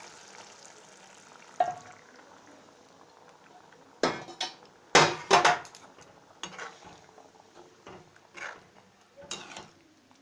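Metal spoon clinking and knocking against a cooking pan, with the loudest cluster of clatters about four to five and a half seconds in, as the curry is stirred in the pan.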